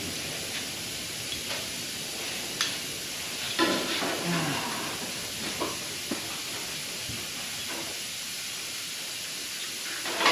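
Steady hiss with a few short clicks and knocks over it, the loudest cluster about halfway in: clamps and sheet metal being handled at a fender.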